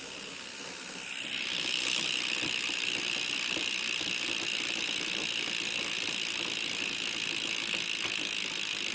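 Kink Launch BMX's rear hub ratcheting, its pawls clicking in a fast, even buzz as the rear wheel spins freely. The buzz gets louder about a second in, then holds steady. It is the bike's loud hub.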